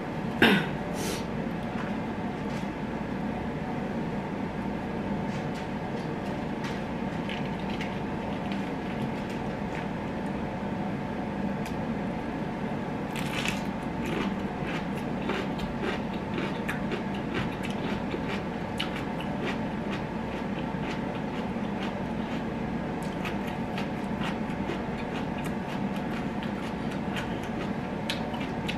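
A nose blown into a tissue about half a second in, a short falling blast that is the loudest sound here. After it come close-up eating sounds, soft chewing and mouth clicks with a brighter flurry about thirteen seconds in, over a steady background hum.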